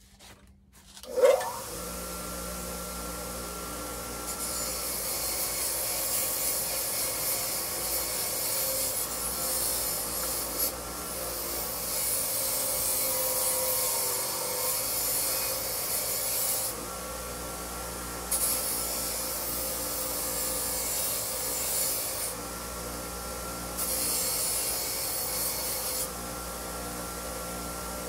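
Electric power tool starting up about a second in, then running steadily while scouring rust off metal. Its scraping hiss comes and goes several times as the tool is pressed on and lifted off, and the motor tone rises slightly when it runs free.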